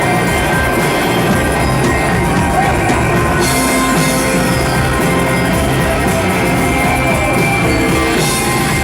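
Live rock band playing loudly, drum kit and guitar, with the cymbal-bright highs lifting for several seconds in the middle.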